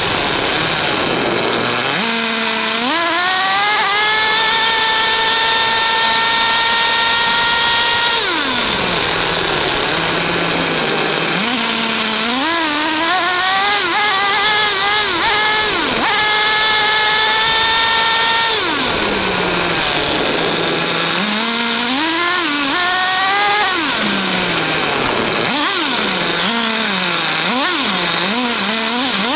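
Redcat Racing Earthquake 3.5's small 3.5 cc nitro engine revving up and down: it climbs to a long steady high pitch, drops back to a low idle, revs up and holds again, then ends with a run of quick short blips.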